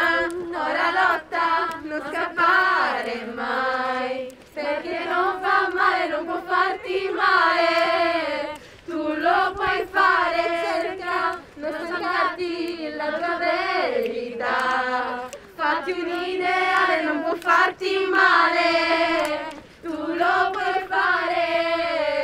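Female voices singing a melody together, with long held notes in phrases separated by short breaks.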